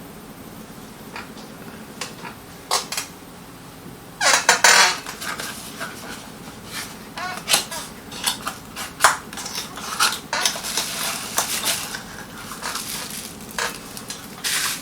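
A small metal cold shoe mount and its packaging handled and unpacked: sharp clicks and clinks with bursts of rustling, the loudest rustle about four seconds in.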